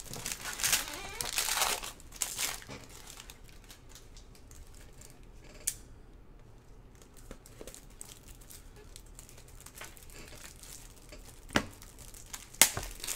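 A foil pack of Panini Prizm football cards torn open and crinkled by gloved hands for the first two seconds or so, then quieter handling of the cards, with a few sharp clicks near the end.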